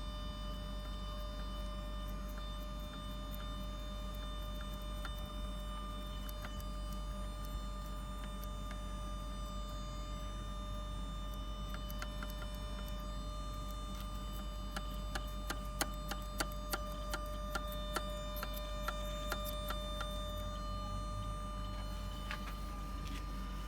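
Car throttle body making unwanted noise: a steady high whine over a low hum, with a run of irregular ticks and clicks in the second half.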